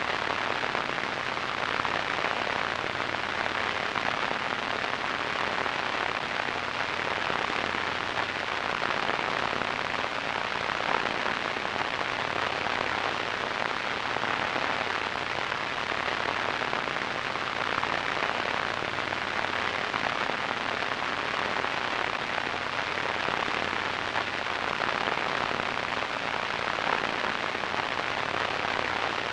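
Steady radio static: a continuous, even hiss with fine crackle, strongest in the middle and upper range.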